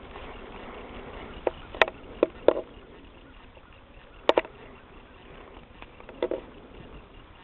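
A horse being ridden at a walk on sandy ground: a few scattered sharp clicks and knocks at uneven intervals over a steady background hiss.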